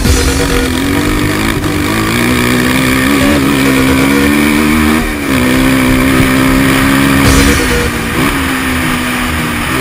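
250cc racing quad bike's engine running hard at a steady pitch, heard from on board, with the revs dipping briefly about five seconds in and again about seven seconds in as the throttle is eased.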